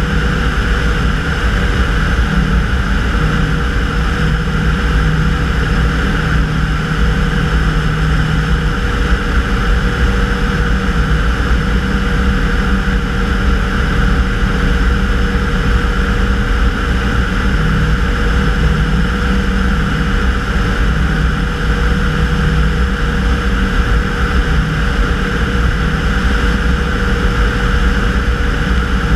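Tanarg weight-shift microlight trike in level flight: its engine and pusher propeller drone steadily with no change in power, under a heavy rumble of wind on the wing-mounted microphone.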